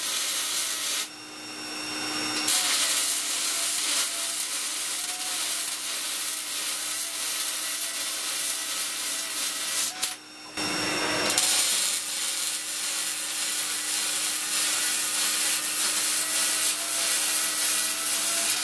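MIG welder arc welding steel tubing: a continuous frying crackle, with a steady low hum beneath. The arc breaks off about a second in and strikes again a moment later, then stops for about half a second near the middle and restarts.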